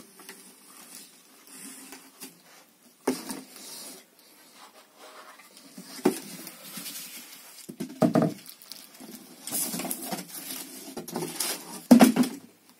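Packing being handled while a 15-inch speaker driver is unboxed: plastic wrap and cardboard rustling and crinkling, with scattered knocks as the driver and carton are moved, and a heavier bump near the end.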